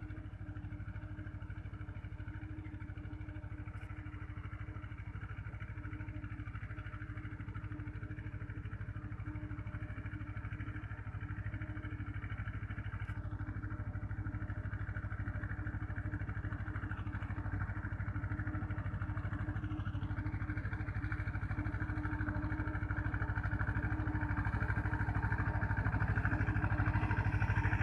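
Small engine of a motorized spraying machine running steadily, slowly growing louder.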